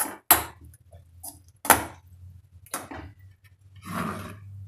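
A perforated metal spatula stirring a thick masala in a metal kadhai: a few sharp clacks against the pan, then a short scrape near the end. A faint low hum runs underneath.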